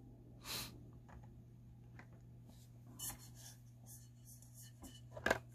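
Quiet room tone with a steady low hum, broken by a few faint soft rustles and breaths, with a brief mouth sound near the end.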